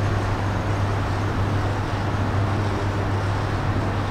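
Steady room ambience of a large exhibition hall: a constant low hum under an even wash of noise.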